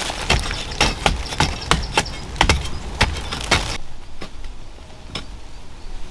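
Bamboo sticks knocking and scraping into a hard, dry earth bank while a burrow is dug out, about three sharp strikes a second. It breaks off a little past halfway, and after that there are only a few faint clicks.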